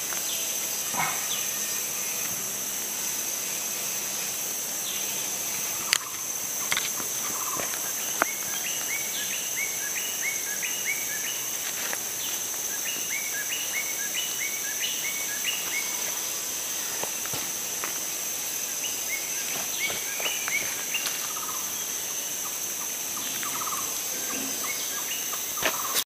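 Tropical rainforest insect chorus: a steady, high-pitched drone of several tones running throughout. Over it, an animal gives runs of short, quickly repeated chirps through the middle of the stretch, with a few scattered light clicks.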